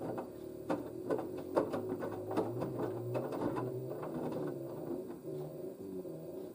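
LG DirectDrive washer dryer's direct-drive motor humming as the drum turns a load of wet towels, with irregular knocks and clunks, while it tries to balance the load for the final spin. The load is unbalanced, so the machine holds off spinning up.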